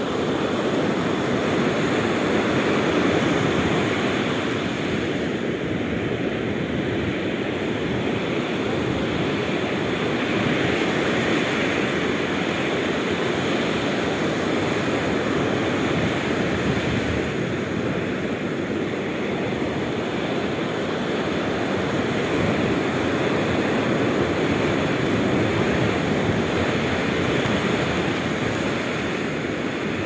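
Ocean surf breaking and washing up the sand: a steady rushing wash that slowly swells and eases.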